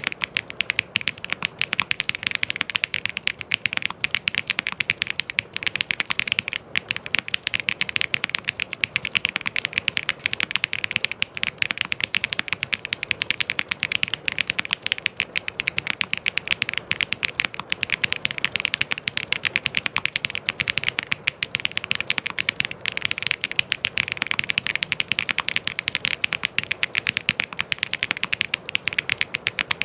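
Fast, continuous typing on a mechanical keyboard: a dense, unbroken stream of key clicks.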